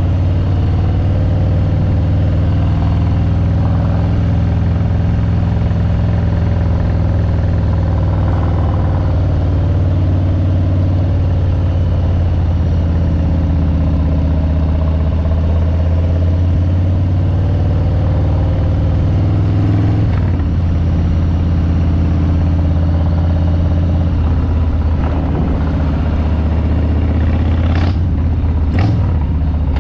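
Harley-Davidson Street Bob 114's Milwaukee-Eight 114 V-twin engine and exhaust running at a steady speed, with a few short sharp noises near the end.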